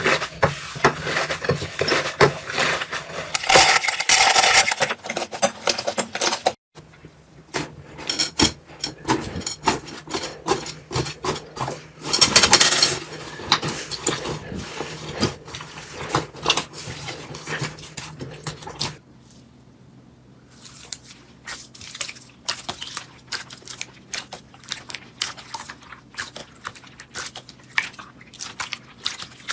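Slime being squeezed and poked by hands, a dense run of fast sticky clicks and crackles. The sound changes abruptly about seven and nineteen seconds in, and is quieter after the second change.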